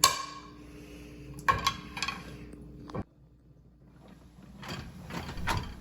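Dishes clinking as they are set into a dishwasher rack: a sharp ringing clink at the start and a few more clinks about a second and a half in, followed by a rattle near the end.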